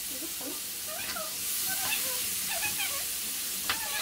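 Chopped tomatoes, onions and peppers sizzling in a hot nonstick grill pan, a steady hiss that brightens a little after the first second or so. A few short, high, wavering calls sound over it.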